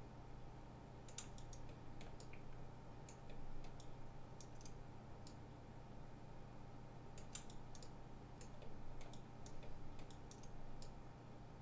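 Faint, irregular clicks of a computer mouse and keyboard, in small clusters, over a low steady hum.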